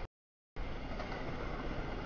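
Double-stack container freight train rolling through a grade crossing, a steady rumble of wheels and cars. The audio drops out to dead silence for about half a second near the start.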